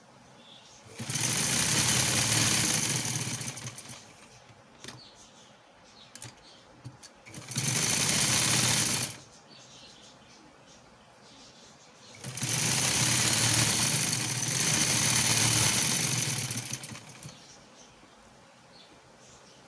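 Domestic sewing machine running in three stitching runs: a few seconds from about a second in, a shorter one about seven seconds in, and a longer one about twelve seconds in. It is sewing a trouser hem, with quiet gaps in between while the cloth is repositioned.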